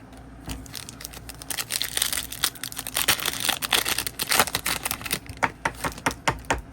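A foil trading-card pack wrapper being torn open and crinkled, a dense crackling for a few seconds, followed by a run of sharp clicks near the end.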